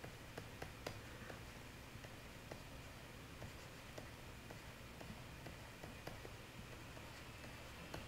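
Faint irregular light taps and scratches of a pen stylus writing on a graphics tablet, over a low steady hum.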